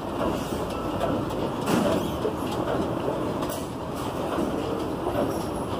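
Escalator running as it carries a rider down: a steady mechanical running noise from the moving steps and drive.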